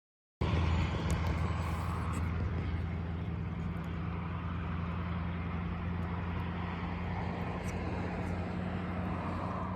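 Steady low engine drone with even running noise over it, cutting in suddenly about half a second in; no horn sounds.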